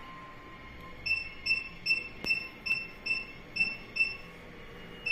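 Touchscreen keypad of a HIEMS Max 4 EMS body-sculpting machine beeping once per key press as a passcode is entered: eight short, high beeps about every 0.4 s starting about a second in, and one more near the end.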